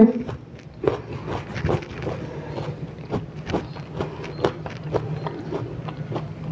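Close-up chewing of crisp raw ambarella (kedondong) flesh: irregular crunching clicks, a few per second, over a faint steady low hum.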